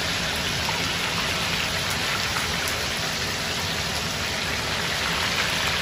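Chicken pieces frying in hot oil: a steady, dense sizzle and crackle, the chicken crisp and browned.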